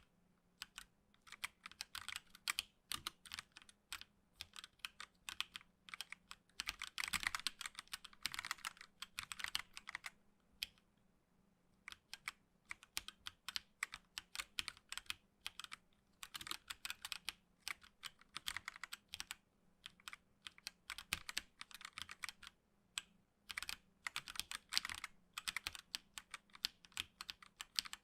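Typing on a HyperX Alloy Origins Core TKL mechanical keyboard with HyperX Aqua tactile switches: runs of quick keystrokes broken by short pauses, with the densest flurries about a third of the way in and near the end.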